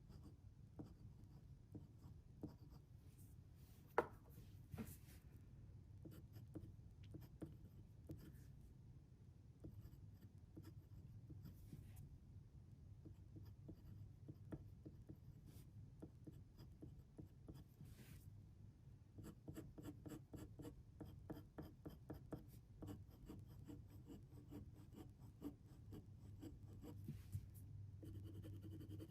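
Faint scratching of a pen writing on paper, with light taps and a busier run of quick small strokes about two-thirds of the way through.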